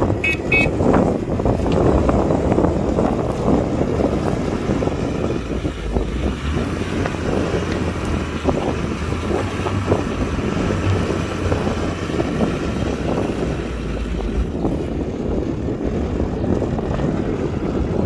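Heavy diesel machinery engine running steadily, with wind on the microphone. A brief high-pitched beeping sounds right at the start.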